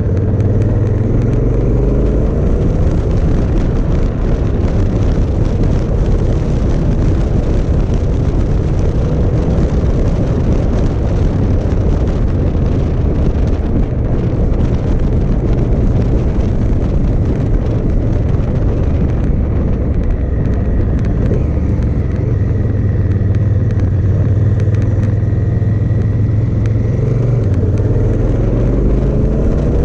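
Riding noise from a 2018 Honda Africa Twin DCT: wind rushing over the microphone with the parallel-twin engine running underneath. The engine note rises near the start and again near the end.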